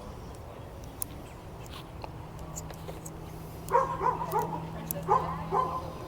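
A small dog yapping, a run of short high barks several a second, starting a little past halfway.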